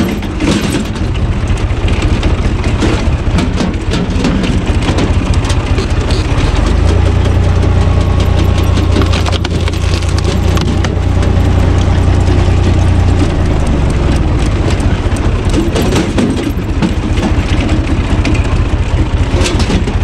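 A Universal U445 tractor's diesel engine running steadily, driving a screw-cone log splitter through a shaft, while the spinning cone bores into a large log round and the wood cracks as it splits. The engine's low drone grows louder for several seconds in the middle.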